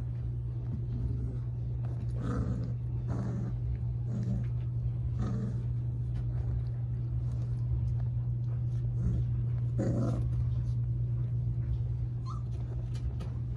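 Four-week-old Central Asian Shepherd (Alabai) puppies growling and yipping in short bursts as they wrestle, over a steady low hum.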